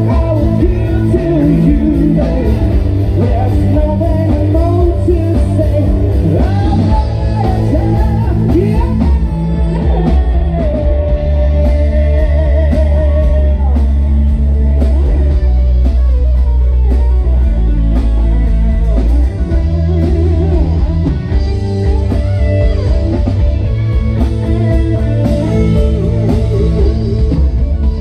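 A live rock band playing: a male singer over electric guitar, bass guitar, drum kit and keyboard. About halfway through the singer holds a long note with vibrato.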